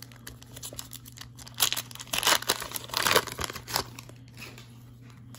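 A 1995 Upper Deck SP Motorsports foil card pack being torn open and its wrapper crinkled, in a few quick rustling rips, loudest about two to three seconds in.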